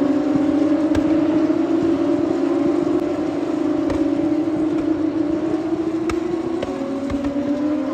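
A pack of open-wheel race cars running through a corner at speed. Several engine notes overlap into a loud, continuous drone that slowly rises in pitch, with a lower note taking over near the end.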